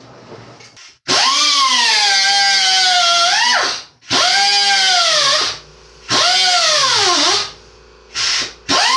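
Cordless power drill cutting into the sheet-metal top of a cabinet, run in four short trigger bursts with a fifth starting near the end. Each time the motor whines up quickly, then its pitch sags and wavers as the bit bites into the metal.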